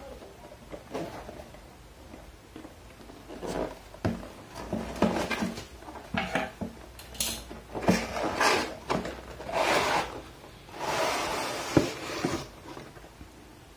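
Cardboard box being handled and its end flap opened, a string of short scrapes and knocks. Near the end, the tripod in its fabric carry bag is slid out of the box with a longer scraping rustle.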